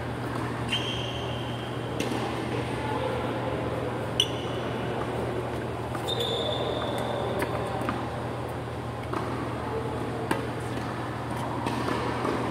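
Tennis rally on an indoor hard court: sharp pops of racket strings hitting the ball every second or two, with short high squeaks of sneakers on the court surface, over a steady low hum.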